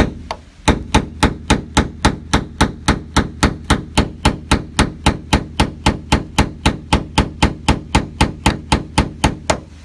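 Hammer tapping a steel punch against the grooved head of a seized screw on a 1977 VW Type 2 bus's sliding-door fitting: a steady run of metal-on-metal strikes, about four a second. The punch is set in a cut groove so the taps drive the screw head round to back it out.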